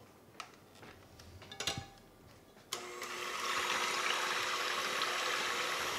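A KitchenAid electric hand mixer is switched on about halfway through and runs steadily, its beaters whipping heavy cream in a bowl. A few light clicks come before it starts.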